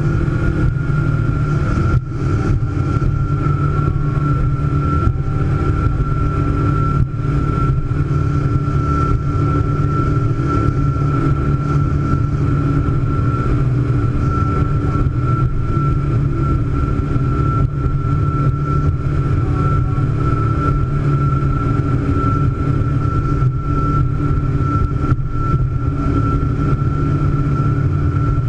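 Scarab speedboat's engine running steadily at cruising speed: a constant low drone with a steady high whine over it.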